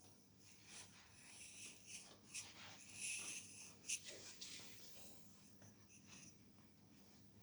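Fingers rubbing and scratching through hair and over the scalp in a head massage, in faint, irregular rustling strokes. There is a sharp click about four seconds in.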